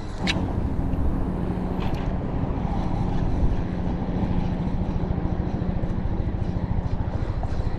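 Steady low engine hum over a low rumble, holding one pitch throughout.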